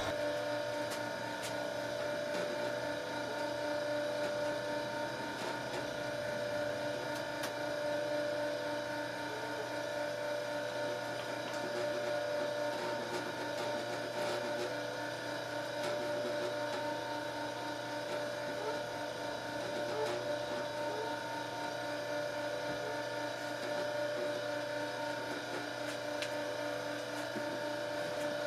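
Steady hum of a homemade double-capstan torque amplifier running, its belt-driven metal capstans turning continuously, with a few faint ticks.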